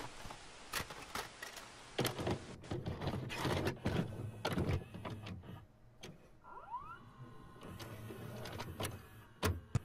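VCR tape-deck mechanism sound effect: a short burst of static hiss, then a run of mechanical clicks and clunks, a brief rising motor whir about two-thirds of the way in, and a steady hum. These are the sounds of a videotape loading and starting to play.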